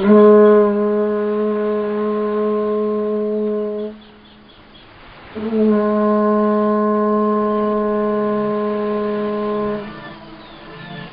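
Conch shell trumpet blown in two long blasts at one steady pitch, each about four seconds, with a pause of about a second and a half between them; a third blast begins right at the end.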